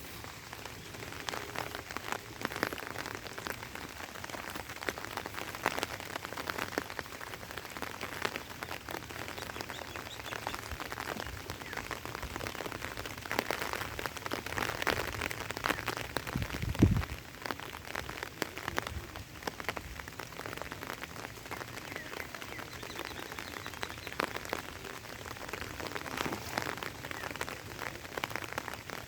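Rain falling steadily, with many small drop taps heard over a constant hiss. A single low thump about seventeen seconds in.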